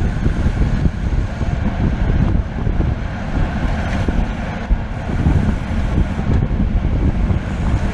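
Loud wind buffeting the microphone of a camera riding along in a bicycle race, a steady low rumbling rush that rises and falls in strength.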